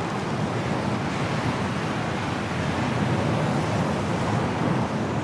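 Steady wind of a snowstorm blowing hard, a continuous rushing noise with no other sound standing out.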